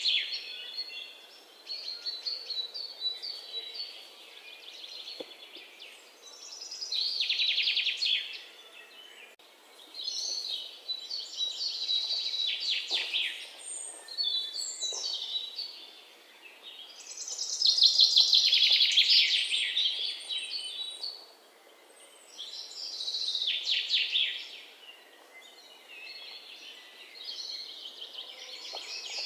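A songbird singing: high, rapidly trilled phrases, each a second or two long, repeated every few seconds over a faint steady hiss.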